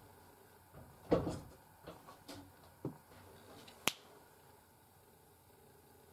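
Makeup containers and tools being handled: a knock about a second in, a few light clicks, then one sharp click near four seconds in.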